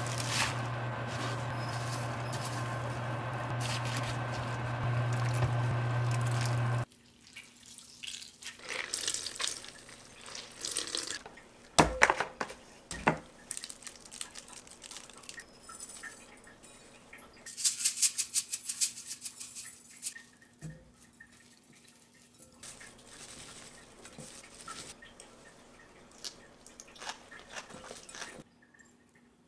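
A pot of water heating on an induction hob, a steady hum under a noisy hiss, cutting off suddenly about a quarter of the way in. Then quieter kitchen handling: two sharp knocks, a run of fast ticks, and hands mixing blanched spinach with sesame oil in a glass bowl.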